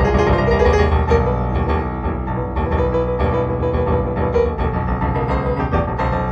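Improvised solo piano music, with held low notes under changing upper notes.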